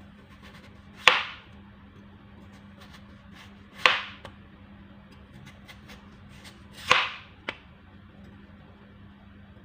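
Chef's knife cutting through a peeled potato and striking a plastic cutting board: three sharp knocks about three seconds apart, with a lighter tap shortly after the last.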